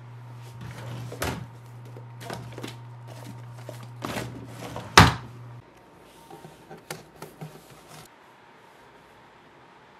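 A wooden desk drawer opened and rummaged: knocks and sliding, with a paperback book and papers shuffled about. There is one loud knock about five seconds in, then quieter handling of a notebook that stops about eight seconds in.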